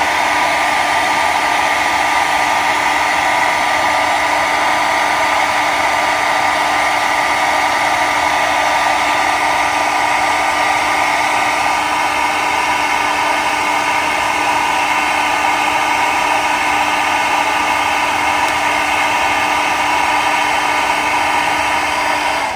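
Handheld blow dryer running steadily on high, a loud even whir with a fixed motor hum, used to heat tire-sticker glue so the letters can be peeled off the rubber.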